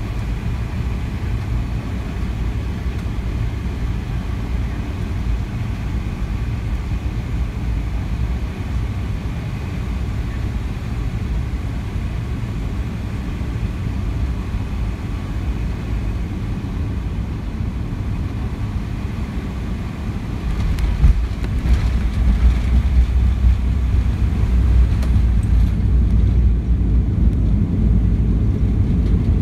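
Boeing 717-200 cabin noise on final approach: a steady rumble of airflow and engines. About twenty seconds in the aircraft touches down, with a few jolts, and a louder, deeper rumble of the tyres on the runway follows during the rollout.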